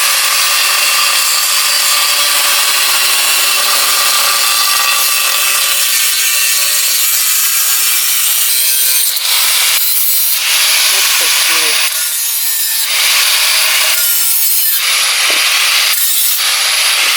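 Angle grinder cutting a metal chimney pipe to length. It runs steadily at first, then in uneven stretches over the second half as the cut goes on.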